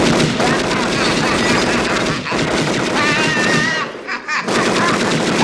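Tommy gun firing long automatic bursts of rapid shots, with a short break about four seconds in. A man's cries are heard over the gunfire near the middle.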